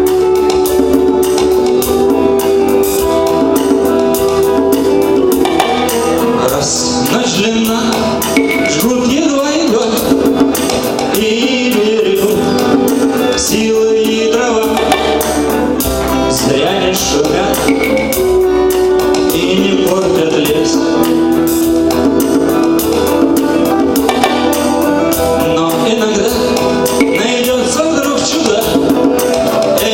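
Rock band music: an instrumental passage of a song cover, with drums and a lead melody holding long notes.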